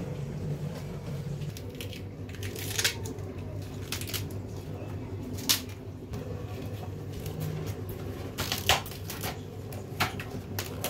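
Raw cabbage and cauliflower leaves being handled: crisp rustling and crackling, with a few sharp clicks, over a steady low hum.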